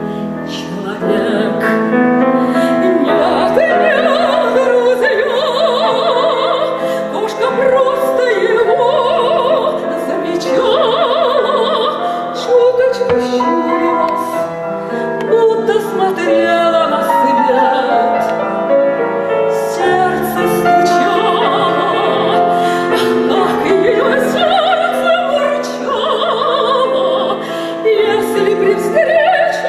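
A woman singing a Russian song in a classical, operatic style with strong vibrato, accompanied by a grand piano.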